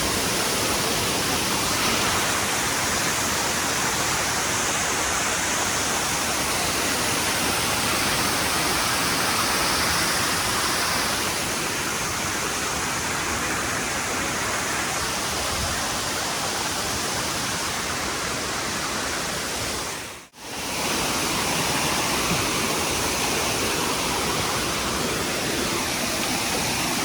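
Steady rushing of a large waterfall's falling water, an even wash of noise that briefly cuts out about twenty seconds in.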